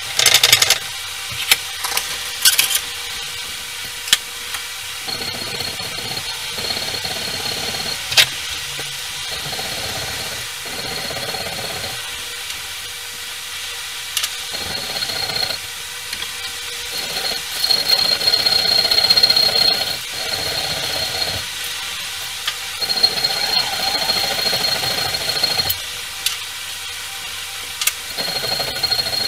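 Small hand file scraping on a steel part clamped in a bench vise, in spells of a few seconds with pauses between. A few sharp metal clicks in the first seconds as the part is set in the vise jaws.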